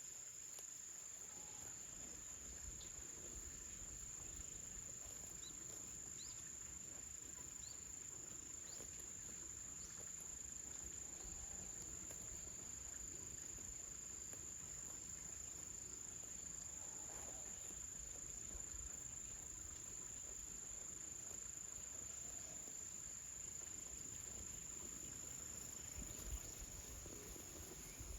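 Insects, crickets by the sound, chirring as one continuous high-pitched drone, with a few faint short chirps over it.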